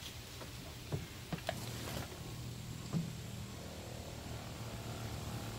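A few light clicks and knocks of plastic hose fittings being handled and connected to a foam generator, over a steady low hum.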